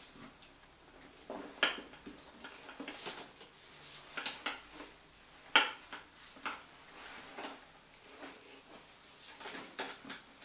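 Metal hardware on a leather Fendi Peekaboo handbag clinking and clicking as the bag is lifted and its strap slung over the shoulder: a string of irregular sharp clicks, the loudest about a second and a half in and again about five and a half seconds in.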